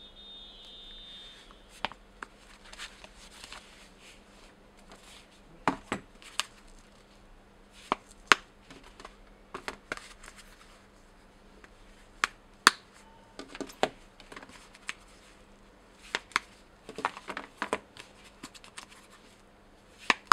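E-reader flip cases handled by hand: irregular sharp clicks, taps and light rustling as the covers are opened and closed and the cases are set down on a tabletop.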